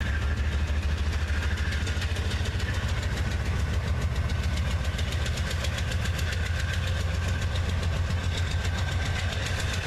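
Diesel freight locomotive passing under power: a steady low engine rumble with a fast, even beat.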